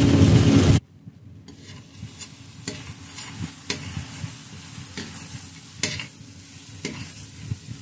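Metal spatula stirring and scraping a foamy sunflower-lecithin mixture frying in a stainless steel pan: soft sizzling with irregular scraping strokes against the pan, about one every half second to a second. The first second holds a louder burst of hissing noise that stops abruptly.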